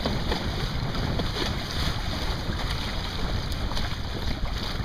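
Wind buffeting the microphone aboard a small sailing proa under way, a heavy uneven rumble, with water washing against the hull and faint light splashes.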